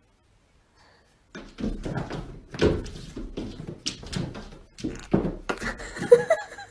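Near silence for about a second, then a run of irregular knocks and thumps, with a few short pitched sounds near the end.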